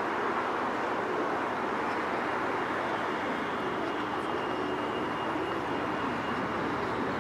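Steady rush of vehicle traffic noise, with a faint thin high tone in the middle.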